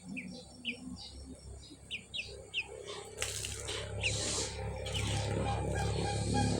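A small bird chirping, a series of short quick notes through the first three seconds. About three and four seconds in come two brief noisy bursts, and a low steady hum builds toward the end.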